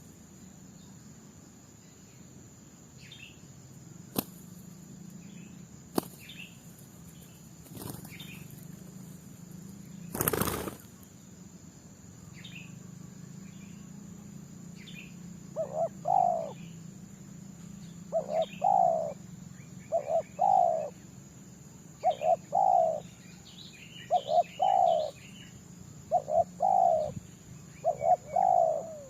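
Spotted dove cooing again and again from about halfway through, in short low phrases of a few notes each. Small birds chirp faintly and a steady high insect drone runs underneath. There are a few sharp knocks in the first half.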